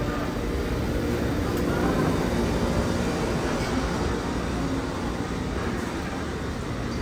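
Busy market ambience: a steady low rumble with a faint murmur of voices underneath.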